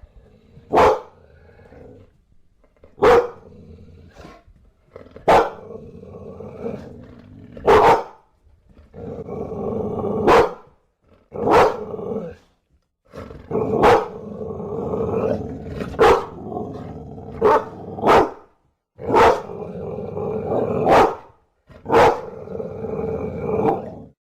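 Bulldog barking about a dozen times, a sharp bark every one to two and a half seconds, with stretches of growling between the barks.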